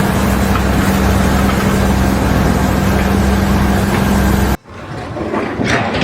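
A motor or machine running steadily, a dense even noise with a constant low hum, which cuts off abruptly about four and a half seconds in.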